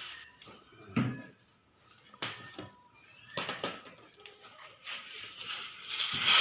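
Scattered knocks and bumps, the loudest a dull thump about a second in, followed by a few sharper knocks.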